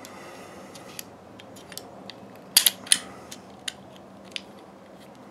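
Glock 26 pistol slide and recoil spring assembly being handled and fitted back toward the frame during reassembly: a brief scrape, then sharp metal-on-polymer clicks, the loudest three in quick succession about two and a half seconds in.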